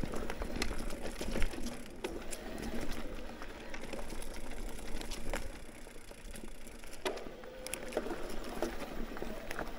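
Mountain bike riding over a rough trail: irregular sharp knocks and rattles from the bike over rocks and roots, over a steady rush of tyre and wind noise, with one louder knock about a second and a half in.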